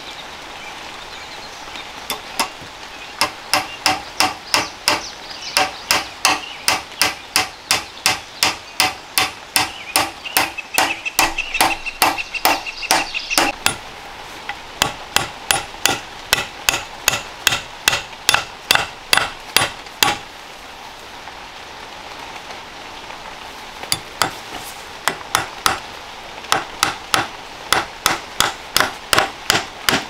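Small hatchet striking a green wooden stick laid on the ground: quick runs of sharp knocks, about two to three blows a second. The runs are broken by short pauses and one longer pause about two thirds of the way through.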